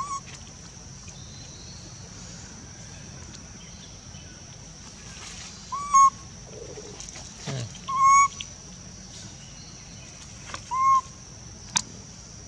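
Baby macaque crying with short coo calls: four brief hoots, each rising and falling slightly, spaced a few seconds apart.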